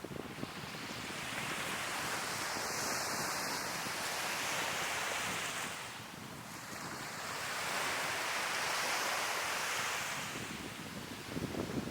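Sea waves breaking and washing up on a beach, swelling twice about five seconds apart, with low wind rumble on the microphone.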